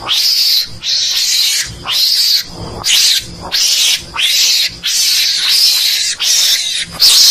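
Mongoose (garangan) calls from a recorded hunting lure: harsh, hissing screeches, each sweeping up at its start, repeated in quick succession about one and a half times a second.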